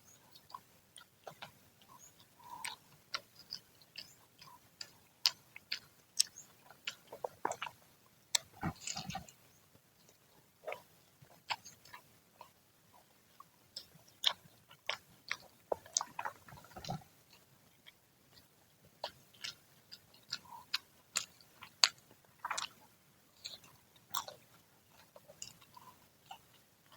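Close-up chewing and biting of freshly fried gorengan fritters: a steady string of sharp, irregular crunches, with a couple of longer rustling smears among them.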